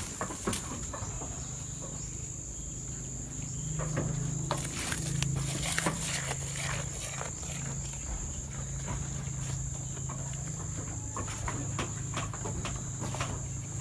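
Goat eating leafy awar-awar branches: crisp crackles and rustling of leaves being torn and chewed. A steady high insect drone runs underneath, with a low steady hum from about a second in.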